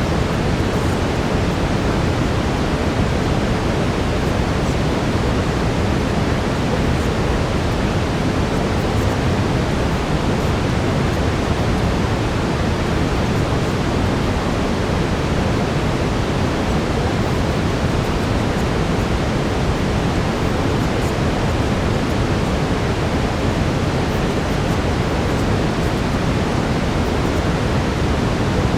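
Steady brown noise: an even, deep hiss with no breaks or changes.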